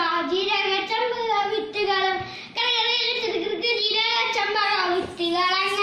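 A young boy singing a Malayalam nadan pattu (Kerala folk song) solo, with no accompaniment, pausing briefly for breath about two and a half seconds in.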